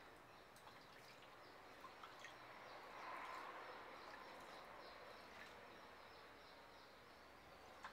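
Near silence: faint trickling and dripping of bathwater as a hand scoops it over a baby monkey in a plastic basin. The sound swells briefly about three seconds in, with a few small drip ticks.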